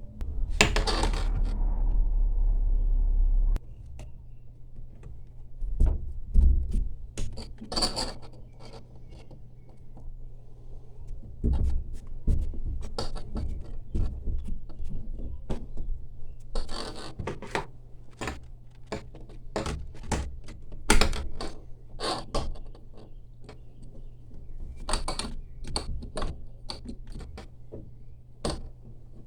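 Scattered clinks, knocks and scrapes of small hard parts and tools being handled, irregular and separate, over a faint steady low hum; a loud low rumble fills the first three and a half seconds and stops abruptly.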